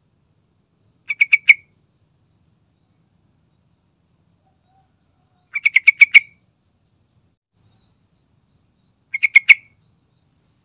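Yellow-vented bulbul calling: three short bursts of rapid chirps, four to six notes each, about a second in, past the middle and near the end.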